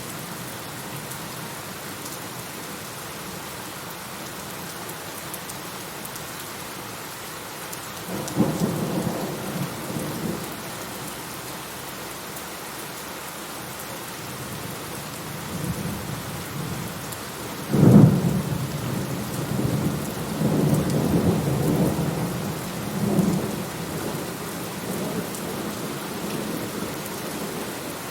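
Steady rain with thunder: a low rumble rolls in about eight seconds in, then a sharp, loud thunderclap about eighteen seconds in is followed by several seconds of rolling rumble.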